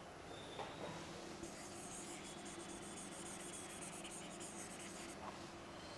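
Felt-tip marker scribbling on a whiteboard: a faint, quick run of back-and-forth strokes as a drawing is shaded in, from about a second and a half in to about five seconds in.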